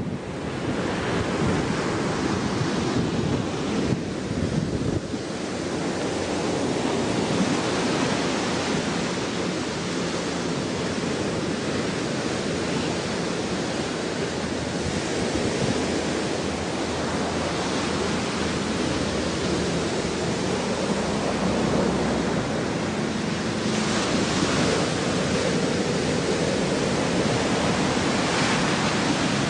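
Steady rush of ocean surf with wind buffeting the microphone.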